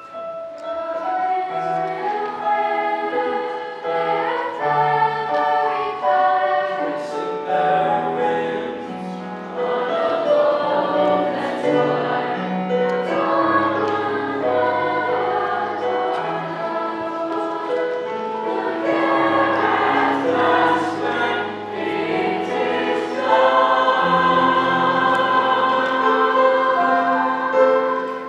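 School choir singing a choral piece in parts, holding long sustained notes, with piano accompaniment.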